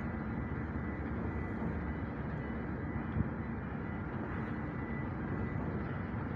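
Steady low rumble of the ro-ro ferry Botnia Seaways' engines as she turns in the harbour, with a faint steady whine above it. A single short knock about three seconds in.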